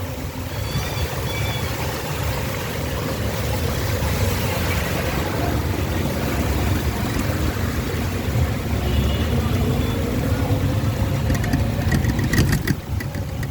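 Motor vehicle engine running steadily at low speed while driving through floodwater on a street, with a steady low rumble. A few sharp rattling clicks about twelve seconds in.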